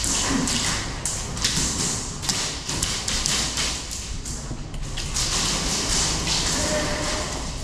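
Thuds and taps of an airsoft player moving on foot through plywood rooms: footsteps and gear knocking, with stretches of hiss coming and going.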